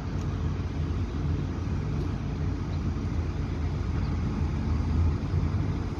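Heavy machine's engine running steadily with a low rumble, the sound of the crane lifting an excavator's upper structure onto its undercarriage.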